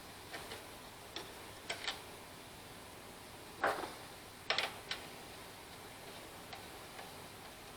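Irregular light clicks and taps from hand tools and small parts being handled, with a couple of sharper knocks around the middle, over a faint steady hiss.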